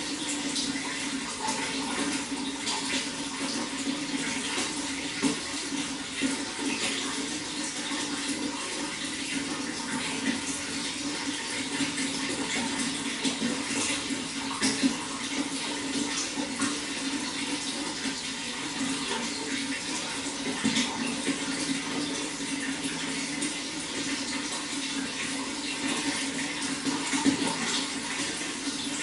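Running water, splashing and gurgling steadily without a break.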